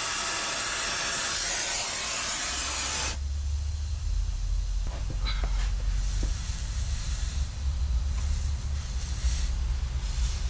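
Soldering torch flame hissing steadily on a copper refrigerant line joint, shut off abruptly about three seconds in. After that, a low rumble with a few light clicks as the hot joint is handled.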